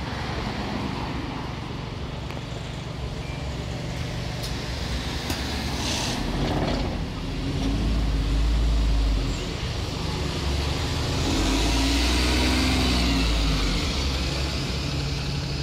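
City buses' engines running at a bus stop as buses pull away close by: a steady low rumble that swells louder about eight seconds in and again from about eleven to fourteen seconds, with a short hiss about six seconds in.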